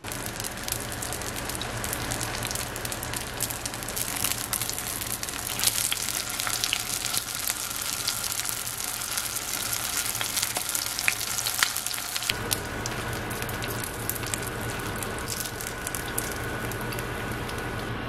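Rice-paper-wrapped rolls sizzling as they fry in oil in a nonstick pan, a dense crackling with many small pops, over a steady low hum. About twelve seconds in, the sizzle changes to a smoother, more even texture.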